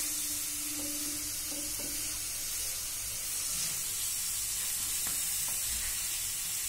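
Grated carrots frying in ghee in a non-stick frying pan: a steady sizzle as a wooden spatula stirs and turns them, with a few light scrapes against the pan.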